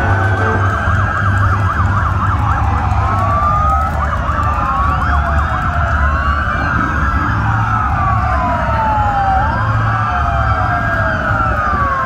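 Several emergency-vehicle sirens sounding at once, overlapping slow rising-and-falling wails and quick warbling yelps, over a steady low engine rumble.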